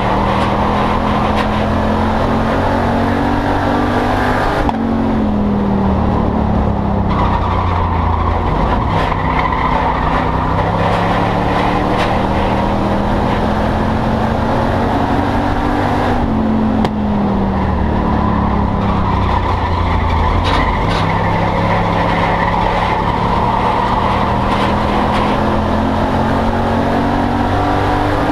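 Loud in-cabin sound of an Enduro stock car's engine at racing speed on an oval. Its pitch climbs steadily along each straight, then drops sharply as the throttle is lifted for the turns, about every twelve seconds.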